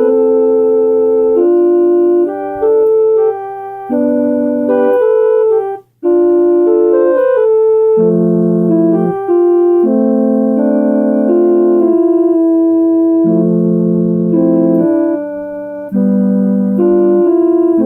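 Electronic keyboard playing a slow piece of sustained chords that change every second or two, with a brief break about six seconds in.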